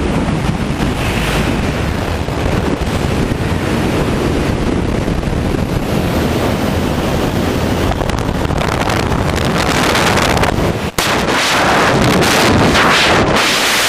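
Loud wind noise from freefall airflow buffeting the camera's microphone during a skydive, turning gustier near the end, with a brief dropout about eleven seconds in.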